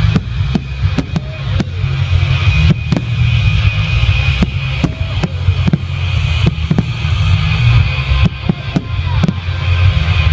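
Fireworks display: many sharp firework bangs over loud show music with heavy bass.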